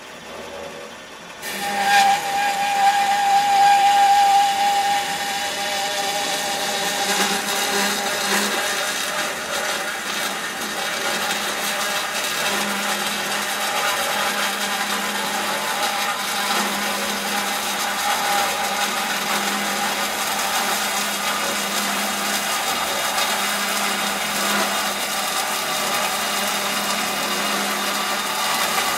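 Band saw cutting a metal pole. The saw runs quietly for about a second and a half, then the blade bites into the metal with a sudden jump in level and a high ringing tone that fades over the next few seconds, settling into a steady cutting noise.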